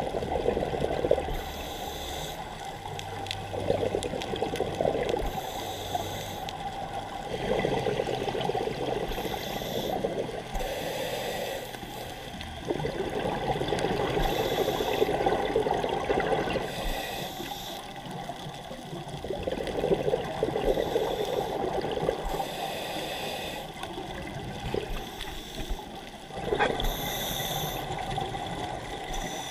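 Scuba diver breathing through a regulator underwater: a hiss on each inhale, then a gurgling rush of exhaled bubbles, repeating every few seconds.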